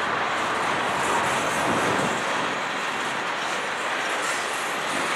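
Freight cars, boxcars and tank cars, rolling steadily past: a continuous noise of steel wheels on the rails.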